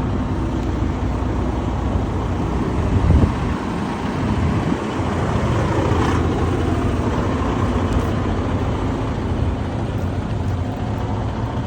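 Steady low rumble of a motor vehicle running, with a faint hum.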